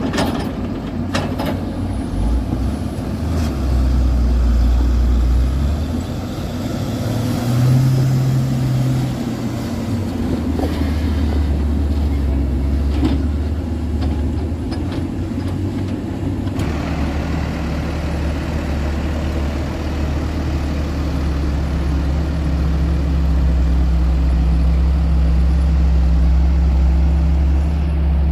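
Heavy construction machinery engines running under work, their low note shifting up and down in level and pitch. The sound changes abruptly about halfway through, as to a different machine.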